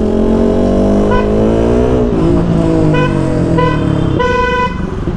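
KTM Duke 200 single-cylinder engine through an aftermarket side-mount exhaust, pulling along with the pitch rising to about two seconds in, then dropping and holding. Several short horn beeps from surrounding traffic sound over it, the last one longer, near the end.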